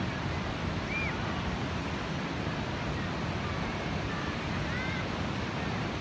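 Pacific Ocean surf breaking on a sandy beach, a steady unbroken wash. A few faint short high calls rise over it, once about a second in and again near the end.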